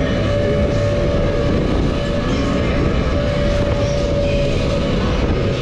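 Move It 18 fairground swing ride running through its cycle: a loud, steady mechanical rumble with a held whine through most of it, amid general funfair noise.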